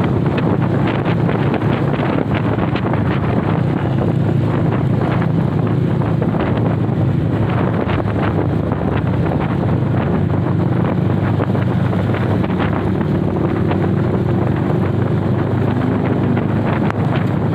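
Wind buffeting the microphone on a moving Honda CB motorcycle, with a steady engine and road rumble underneath.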